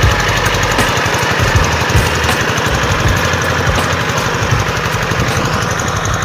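Two-wheel hand tractor's single-cylinder diesel engine running steadily with a fast, even knock, pulling a plough through a rice paddy.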